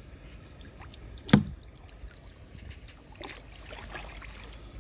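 Kayak paddle strokes splashing and dripping in the water, with one sharp knock about a second in, the loudest sound.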